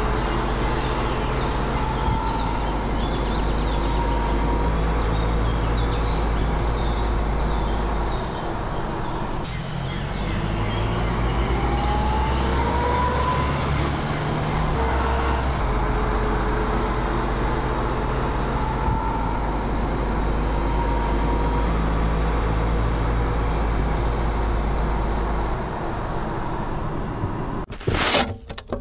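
MAN TGS 35.510 truck's diesel engine running as it drives, a steady heavy drone with a deep low rumble. Near the end, a sharp clang cuts in.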